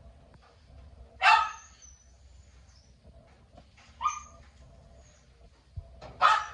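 A dog barking three times: about a second in, around four seconds in (a shorter, quieter bark) and near the end.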